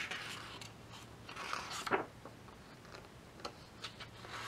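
Pages of a large hardcover photobook being turned by hand: paper rustling and sliding in two short swishes, one at the start and one about one and a half seconds in, with a few faint light ticks after.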